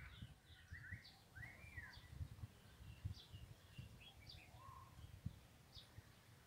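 Faint bird chirps: short, high calls that mostly fall in pitch and recur about once a second, with one longer rising-and-falling note early on. Beneath them runs a low uneven rumble.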